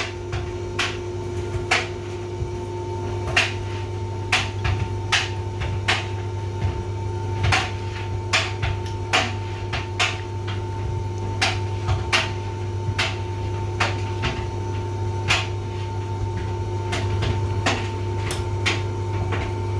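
Hotpoint tumble dryer running its cooldown tumble: a steady motor hum with a low drone, and irregular sharp knocks of the load tumbling against the drum, about one or two a second.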